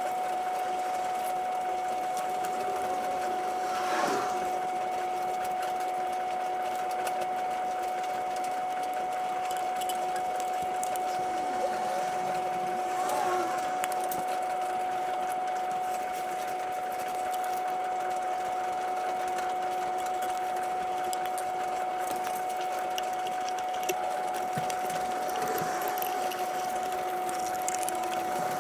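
Steady mechanical hum, one clear tone with a weaker one an octave below, running evenly throughout. Over it are a few faint clicks and brief squeaks as a hand screwdriver works the screws of a metal motorcycle engine cover.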